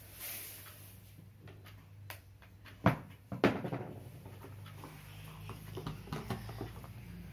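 Kitchen items being handled on a counter: two sharp knocks about three seconds in, then lighter taps and clatters, over a low steady hum.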